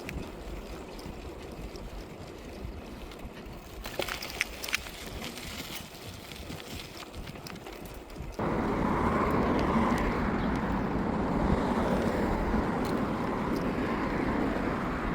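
Wind rushing over the microphone while riding a bicycle, with a few light clicks about four seconds in. About eight seconds in, it jumps abruptly to a louder, steady rushing.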